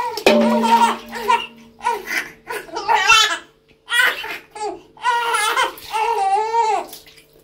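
Newborn baby crying in repeated bursts with a wavering pitch, breaking off between breaths while being bathed.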